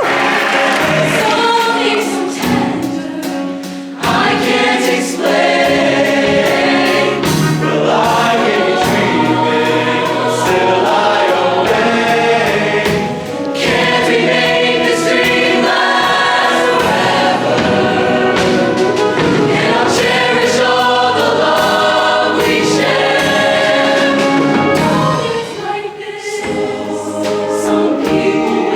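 Show choir singing in harmony over amplified accompaniment with a steady beat, the music dipping briefly a few times.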